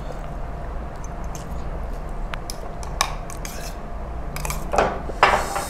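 A fork scraping and clicking around the inside of a noodle cup, with a few light clinks and two louder short scrapes near the end.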